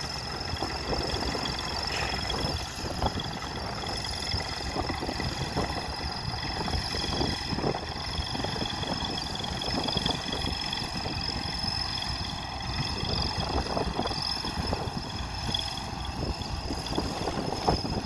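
Diesel engines of a single-drum road roller and a bulldozer running steadily on a dirt site, with wind buffeting the microphone.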